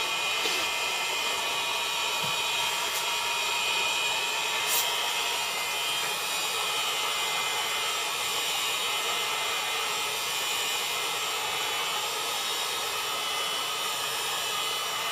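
Handheld electric heat gun blowing steadily: a constant rush of hot air with a thin motor whine, warming the bezel's adhesive tape to soften it for scraping off.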